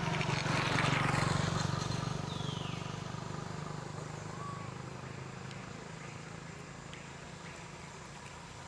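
A motor vehicle passing along the road: a low engine hum with tyre rush that swells to its loudest about a second in, then fades slowly away.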